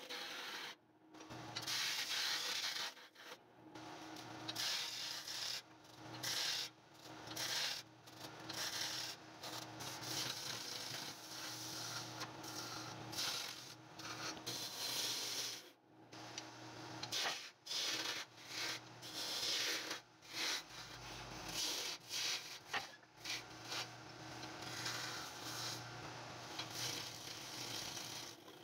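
Wood lathe spinning a long wooden baluster blank while a hand-held turning tool cuts into it: a rough scraping hiss that keeps breaking off and starting again as the tool is pressed in and eased off, over the steady hum of the lathe motor.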